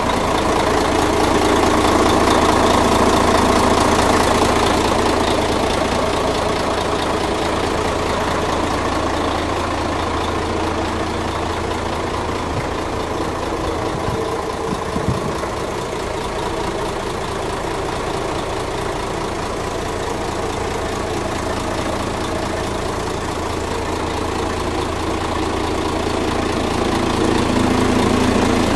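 Truck diesel engine idling steadily, swelling a little louder near the start and again near the end.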